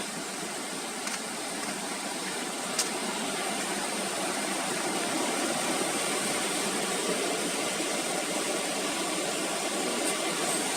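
Steady rush of falling and flowing water from a jungle waterfall and its rocky stream, slowly growing louder, with a couple of faint knocks that may be footsteps on the stones.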